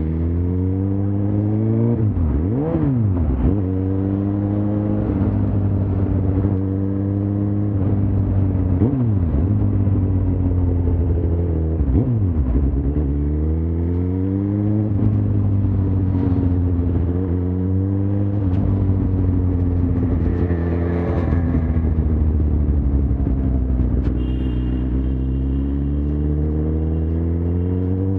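Suzuki GSX-R1000 inline-four engine running on the move, its pitch rising and falling again and again as the bike speeds up and slows, over a steady low drone.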